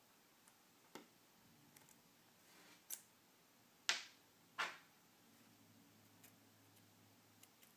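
Faint clicks of small metal repair tools handled on a phone's parts and the work surface, with two sharper clacks a little past the middle, less than a second apart.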